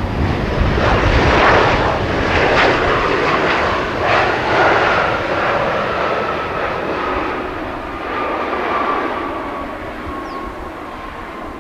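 Airbus A320-200 jet engines running as the airliner rolls past on the runway on its landing roll. A broad rushing noise is loudest in the first few seconds, and a whine falls slowly in pitch as the aircraft moves away.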